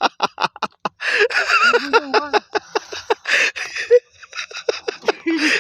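People laughing and calling out, with short rapid bursts of laughter in the first second followed by excited voices.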